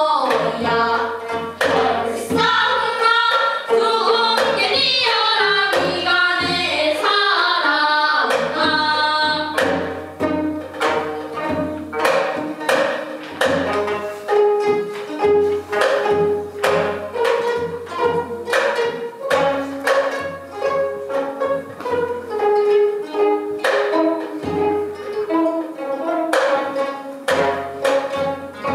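Gayageum byeongchang: young voices singing together in Korean folk-song style while plucking gayageum zithers. After about ten seconds the plucked strings come to the fore in a steady, rhythmic passage.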